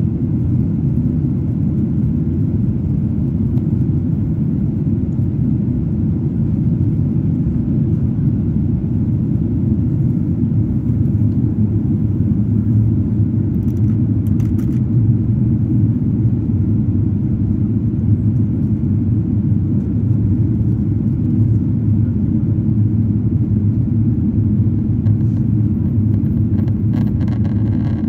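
Steady low roar inside the cabin of a Boeing 777-200ER in flight: engine and airflow noise.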